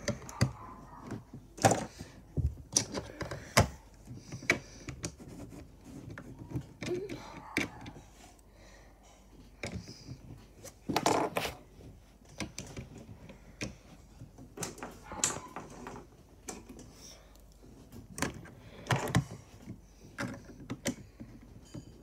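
Lego minifigures being set down and pressed onto the studs of a Lego baseplate, giving irregular small plastic clicks and taps with occasional handling knocks.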